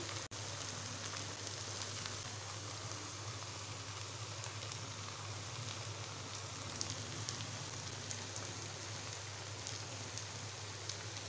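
Steady, quiet sizzle of syrup-coated rice in a hot pan on the stove, with a low steady hum underneath and one click just after the start.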